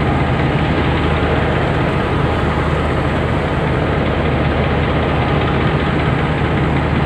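A diesel train engine idling below, a steady low drone with an even noisy hiss over it.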